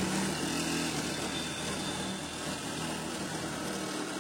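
Reciprocating saw (Sawzall) running steadily as it cuts through a sheet-steel panel.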